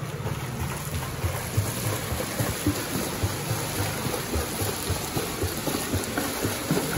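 Swimmer's legs beating the pool water in a flutter kick while he holds the wall: a continuous run of quick, uneven splashes.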